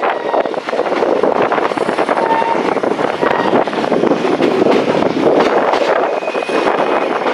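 SE19 passenger train running on the track, heard from an open coach window: a steady rumble and clatter of wheels on the rails, with a short high squeal near the end.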